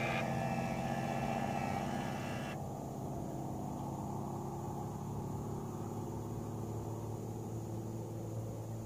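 Orion AutoTracker mount's drive motors running as it slews the telescope: a steady motor hum with a higher whine over it for the first couple of seconds. The hum cuts off right at the end.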